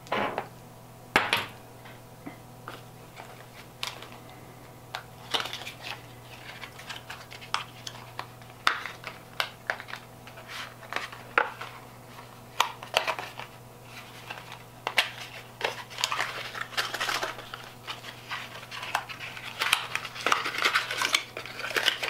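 Small plastic and metal camera-gimbal accessories being handled and set down on a wooden tabletop: scattered clicks, taps and knocks, coming more often in the second half, over a low steady hum.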